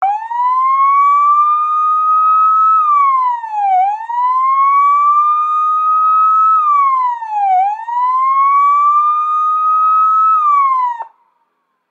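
Police siren wailing: one tone that climbs slowly over nearly three seconds and drops back in about a second, three times over, then cuts off suddenly near the end.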